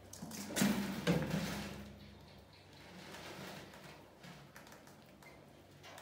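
Cardboard tipping lid of a plastic-bucket mouse trap flipping as a mouse drops into the bucket: two quick knocks about half a second apart, each ringing briefly in the bucket.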